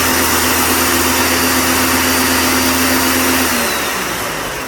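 Electric appliance motor switched on abruptly and running at a loud, steady whine, then spinning down with falling pitch about three and a half seconds in.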